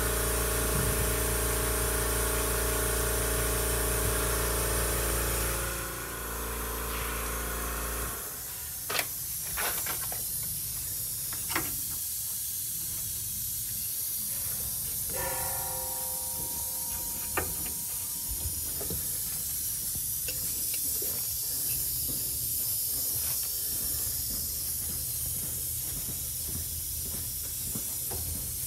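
Compressed air hissing steadily from a leak in an MCI coach's air system, which the mechanic suspects is a hose on the parking brake circuit. A steady mechanical hum runs under the hiss for the first six seconds, and a few light knocks come later.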